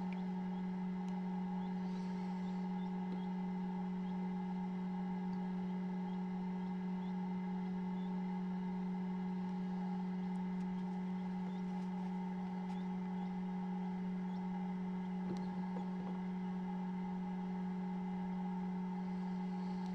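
Egg incubator's fan motor humming steadily: one low, even tone with fainter higher tones above it, and a few faint high ticks scattered through.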